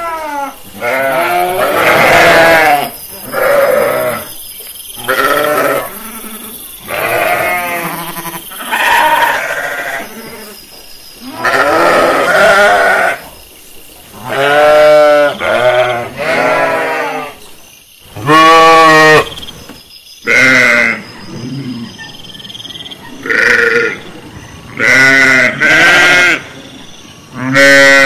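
Sheep bleating over and over, a separate call every second or two, several of them with a quavering wobble.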